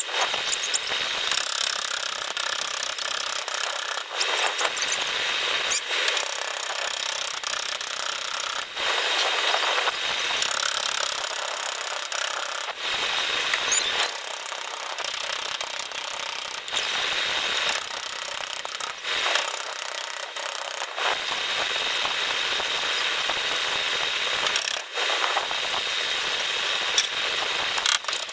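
Steady scraping and rubbing of a hand tool worked against a car's fender panel during dent repair, in long stretches with short breaks between them.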